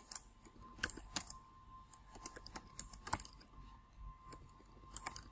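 Typing on a computer keyboard: irregular, scattered keystrokes as a short phrase is typed, over a faint steady tone.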